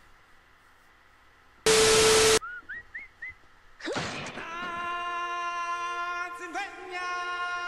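Meme-clip soundtrack: a short, very loud burst of hiss with a steady tone through it, a few quick rising chirps, then from about four seconds in a long held note that wavers and bends in pitch a few times.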